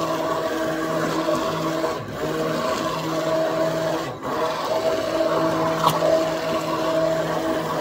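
Electric immersion (stick) blender running in a pot of karhi's yogurt and gram-flour mixture, a steady motor hum. The motor cuts out for a moment twice, about two and four seconds in.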